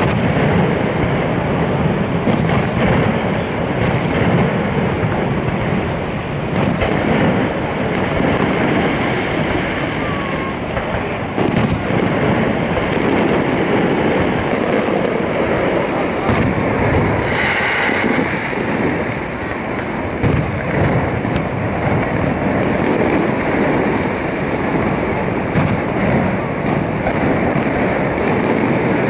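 Fireworks display with shells bursting in quick succession, many sharp bangs over a steady, loud wash of noise.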